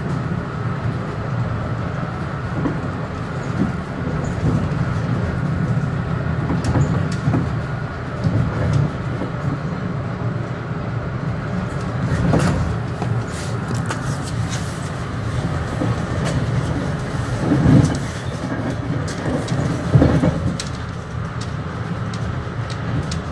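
Metro-North commuter train running along the track, heard from inside the front of the train: a steady low rumble with a faint steady whine above it. A few louder knocks and rattles come through, about halfway in and again near 18 and 20 seconds.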